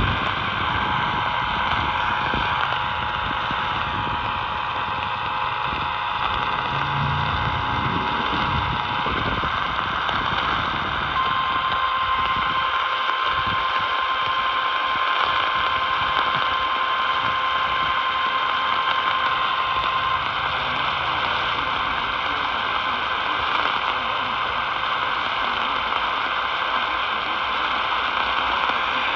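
Emergency Alert System attention signal received over a radio: a steady two-tone beep over hissing static for about nine seconds. After a short gap it is followed by a single steady tone lasting about nine seconds, like the weather radio warning alarm. Static hiss continues throughout.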